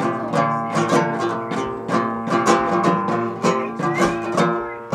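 Uyghur dutar, a long-necked two-string lute, strummed by hand in a quick, even rhythm of about three to four strokes a second over a steady drone.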